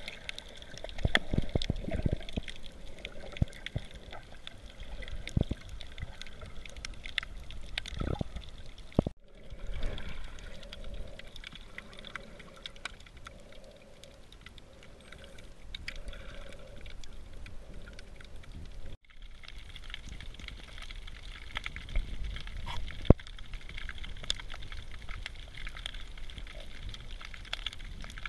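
Underwater ambience heard through a camera's waterproof housing: muffled water movement and low surges with scattered sharp clicks and crackles. The sound drops out for an instant twice at edits.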